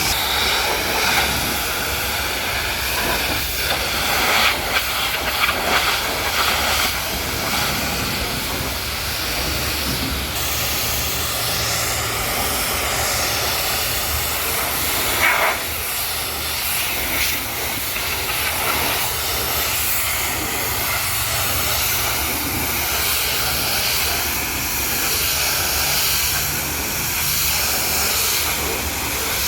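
High-pressure water jet spraying against a muddy truck body: a steady hiss that swells and dips as the spray moves, with a low steady hum underneath.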